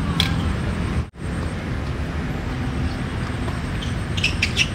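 Steady low rumble of outdoor background noise, cut off for an instant about a second in, with a few short sharp sounds near the end.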